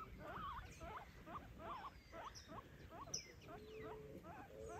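Guinea pigs squeaking: a faint, rapid run of short chirping squeaks, several a second, with a few longer held squeaks in the second half.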